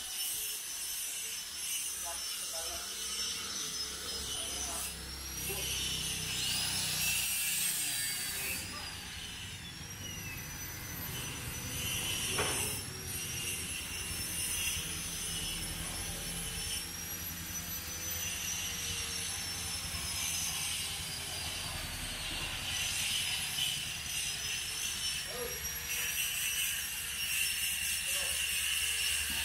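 Handheld angle grinder cutting metal, its high whine wavering up and down in pitch throughout.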